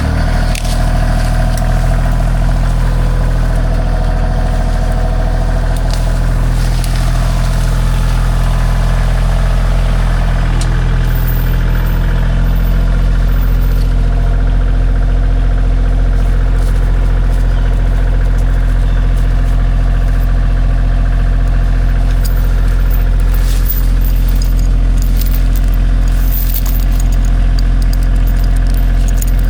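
Engine of the vehicle towing a chained tree out of a pond, running steadily, with a slight change in its note about twelve seconds in. A few metallic clinks come near the end.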